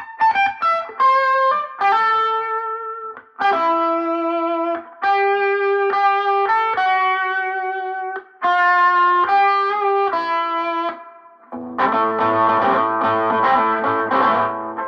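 Electric guitar through a cranked, overdriven amp, playing a lead line of long sustained single notes with short gaps between phrases. After about twelve seconds it switches to a denser, thicker run of many notes together.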